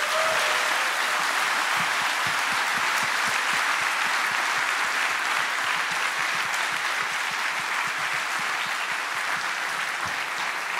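Large audience applauding: dense, steady clapping that eases off slightly toward the end.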